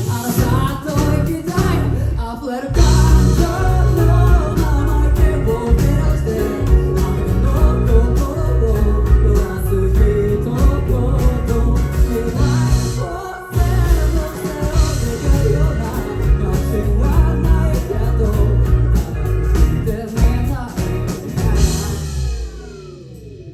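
Rock band playing live, full band with drums and a singing voice. Near the end the playing stops, leaving a sweeping, swirling effect sound.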